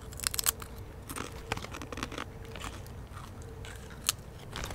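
Taco-flavoured Doritos tortilla chips crunching as they are bitten and chewed close to a microphone: a quick cluster of sharp crunches right at the start, then single crunches here and there as the chewing goes on.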